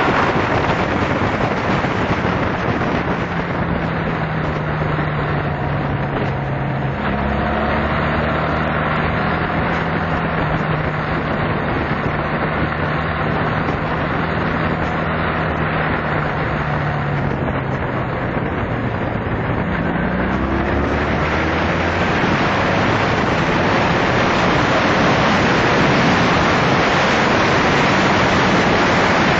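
Honda Magna motorcycle's V4 engine running at road speed, heard under heavy wind rush on the microphone. The engine note shifts about a quarter of the way through, rises again about two-thirds of the way through, and the wind grows louder towards the end.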